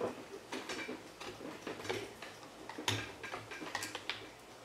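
Irregular metallic clicks and light knocks from a GForce GF2P 12-gauge pump shotgun's barrel and action being handled and fitted together during reassembly, the loudest click about three seconds in.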